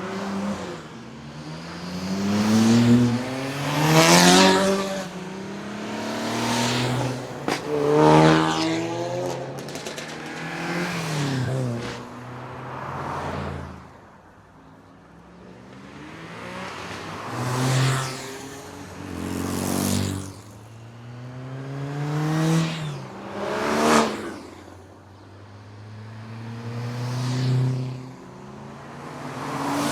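Street-legal performance cars driven hard up a hillclimb. Their engines rev up through the gears and pass close by one after another, the pitch climbing, dropping at each shift and climbing again, with a loud peak every few seconds.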